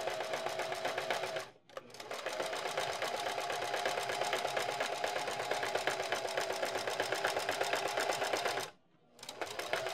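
Home sewing machine stitching knit jersey at a long stitch length, with a fast, even needle rattle. It runs in three bursts: a short run, a brief stop, a long steady run, then a short run near the end.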